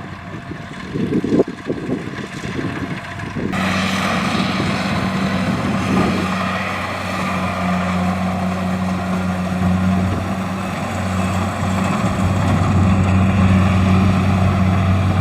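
Kubota DC-70 rice combine harvester's diesel engine running with a steady drone. About three and a half seconds in, the sound suddenly turns louder and fuller, with a hissing rattle over the hum.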